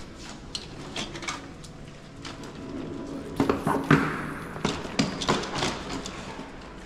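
Wheeled suitcases rolling over a hard stone floor, with a string of clicks and knocks from the wheels and handles, busiest in the second half.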